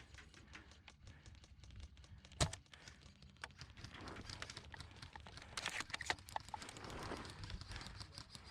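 Quiet rustling and small clicks of movement, with one sharp crack about two and a half seconds in.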